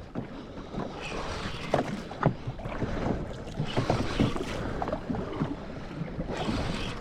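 Water slapping and sloshing against a jet ski's hull, with wind buffeting the microphone and scattered small knocks.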